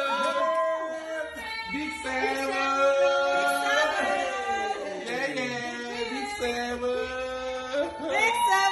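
Music with a sung melody: a voice holding and gliding between long notes over instrumental backing.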